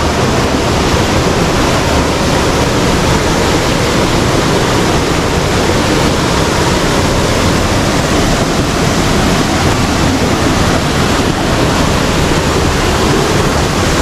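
Small waterfall and rocky stream rushing and splashing over boulders: a loud, steady rush of water.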